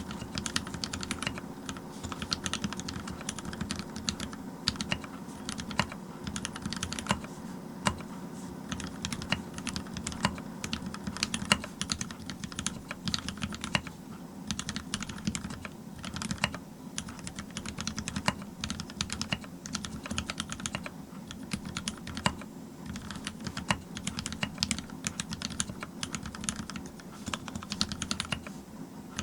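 Steady typing on a TX-87 mechanical keyboard with a brass plate, Cherry MX Black linear switches on 65 g springs, and GMK Hyperfuse keycaps. It is a fast, continuous run of key clacks, broken by a few brief pauses.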